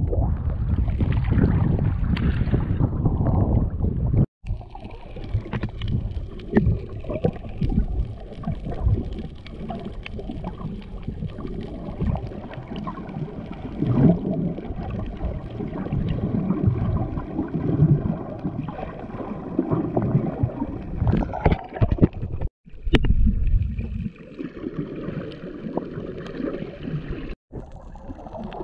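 Waves sloshing and gurgling against a camera held at the sea surface, then the muffled underwater sound of water moving around the camera as a snorkeler swims over a coral reef: a low rumbling wash with scattered crackles and splashes. The sound breaks off abruptly a few times.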